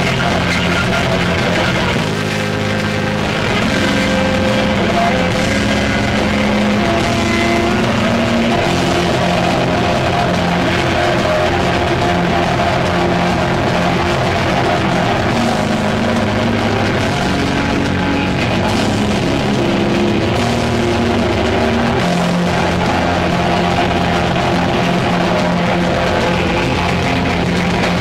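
A live heavy metal band playing loud: a heavily distorted Les Paul-style electric guitar riffing over drums, with no vocals. The sound dips briefly about two seconds in and comes back fuller a moment later.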